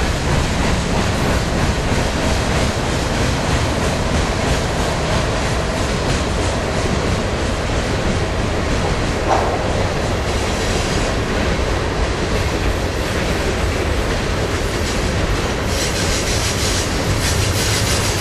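Freight cars of a CSX mixed freight train rolling past: a loud, steady rumble of steel wheels on rail, with clatter over the rail joints that grows sharper near the end.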